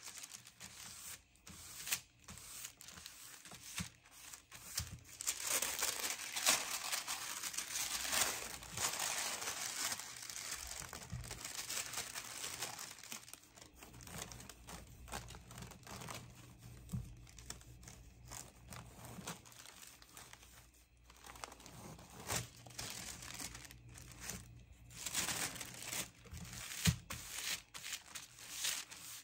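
Thin sewing-pattern tissue paper crinkling and rustling in irregular spells as it is handled and smoothed down by hand.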